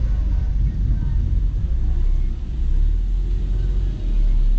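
Steady low rumble of a car creeping forward at low speed, engine and road noise picked up by a camera mounted on its hood.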